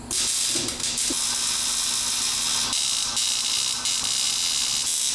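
Welding arc crackling steadily as the tunnel plate is tack-welded to the car's transmission tunnel, starting abruptly.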